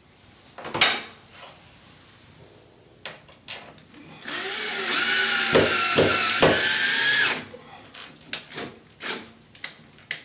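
Screw gun running for about three seconds with a steady whine, driving a screw through a towel-bar bracket into a wall anchor. A sharp knock comes about a second in, and a few lighter clicks come near the end.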